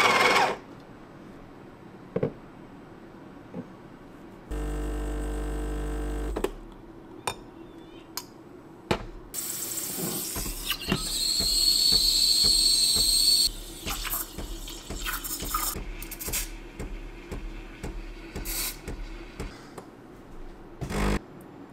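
Home espresso machine making a milk coffee. The machine hums steadily for about two seconds, then its steam wand hisses loudly for about four seconds while steaming milk in a stainless jug, followed by a run of light clinks and knocks from the jug and portafilter.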